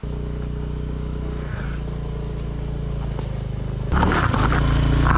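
Motor scooter engine running steadily, growing louder and rougher about four seconds in.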